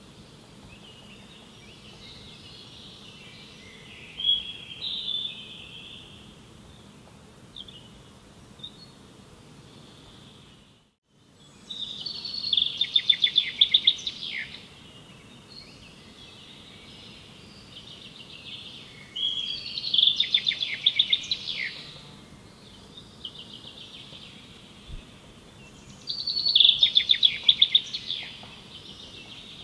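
A songbird singing: a song of fast trilled notes about two seconds long, repeated three times roughly seven seconds apart, with softer calls between, over a steady outdoor background hum. The sound drops out for a moment about a third of the way through.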